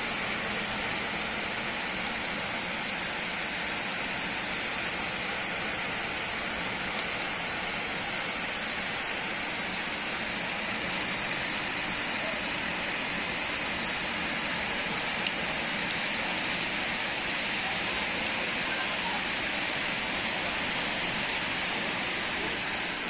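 Heavy downpour of rain falling steadily, an even dense hiss, with a few sharp taps now and then.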